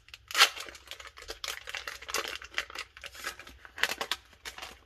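Foil wrapper of a Pokémon booster pack being torn open and crinkled by hand: a run of sharp crackles, loudest about half a second in and again near the end.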